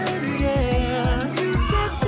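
Background pop music with a steady beat.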